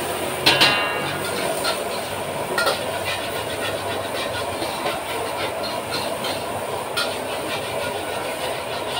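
Fried rice being cooked in a wok over a gas burner: a steady hiss runs throughout, and a metal spatula clanks against the wok. The loudest clank rings out about half a second in, followed by a few lighter knocks.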